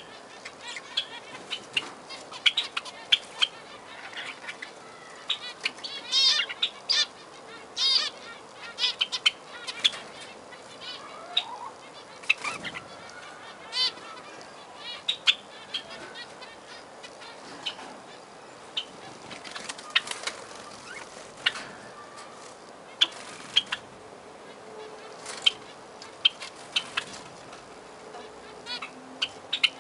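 Zebra finches calling, several birds at once: many short calls in an irregular, busy stream.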